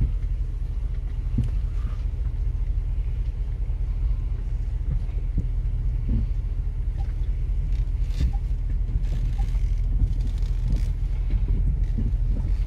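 Low steady rumble inside the cabin of a Range Rover Sport crawling slowly over a rocky trail, with scattered knocks and thumps from the tyres and suspension meeting the rocks.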